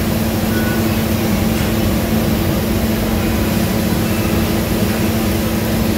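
Steady machine hum, a low even drone with a constant noisy rush behind it, unchanging throughout.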